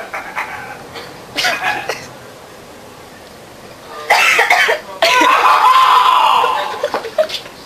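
A person coughing and making loud, rasping throat noises: a short burst about one and a half seconds in, then a longer, louder spell from about four seconds to seven.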